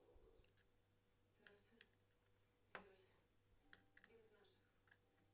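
Near silence broken by faint, scattered small clicks and taps, the loudest about three seconds in.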